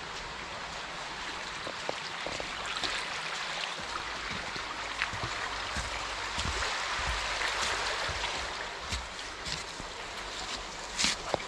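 Small forest stream running, a steady rush of water that swells somewhat midway. Scattered soft thumps, and a couple of sharp knocks about a second before the end, which are the loudest sounds.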